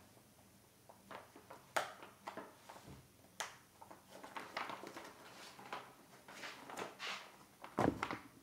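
Faint rustling and scattered light clicks and knocks of cross-stitch canvases and other items being handled and set aside, with a duller thump near the end.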